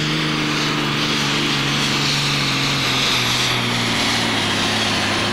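Ford superstock pulling tractor's turbocharged diesel engine running flat out under the load of the sledge. Its pitch sinks slowly as the tractor is slowed down the track.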